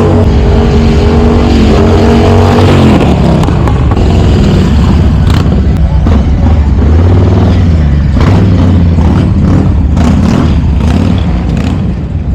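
Loud motorcycle engine being revved hard on arrival. It holds a steady note for about the first three seconds, then turns rougher with uneven blips of the throttle, easing off slightly near the end.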